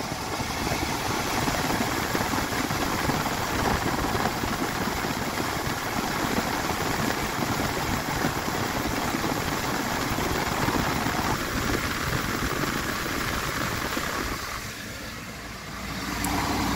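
Car engine idling steadily; the sound drops away briefly near the end, then comes back.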